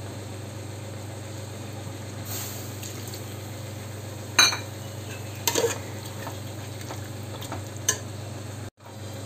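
Prawn masala simmering in an aluminium pot, with a few sharp clinks of a steel slotted ladle against the pot, the first about four seconds in; a steady low hum runs underneath.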